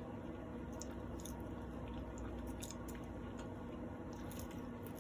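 Close-up chewing and wet mouth sounds of a person eating, scattered short clicks and smacks over a steady low hum.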